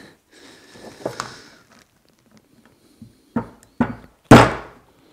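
Hammer tapping a screwdriver to drive a tight push-on washer into its groove on a velomobile brake axle: three sharp metallic taps in quick succession a little past halfway, the last the loudest and ringing briefly. Before them comes a faint scraping of metal on metal.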